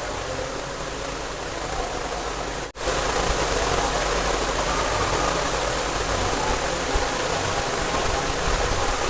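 Steady rushing background noise with no distinct events; it drops out for an instant about three seconds in and comes back slightly louder.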